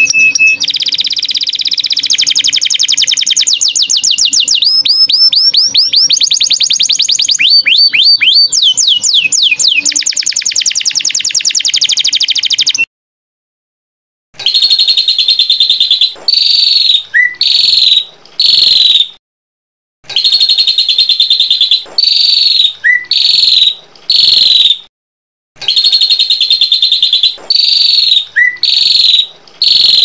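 Small songbirds singing: for about 13 seconds a long, fast, unbroken trilling song, then after a sudden cut and a short gap, sets of quick sharp chirping phrases repeated with pauses between them. It is a song-tutor (masteran) recording of the kind played to train caged songbirds.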